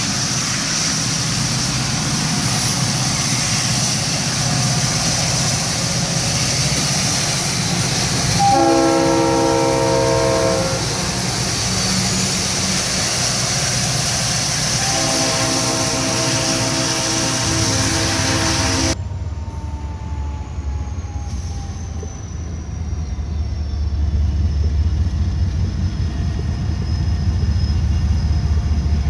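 Freight train passing with its diesel locomotive's multi-chime air horn sounding two blasts, a shorter one then a longer one, over the steady noise of the train. Then a sudden change to a quieter scene where a locomotive's low engine rumble grows louder near the end.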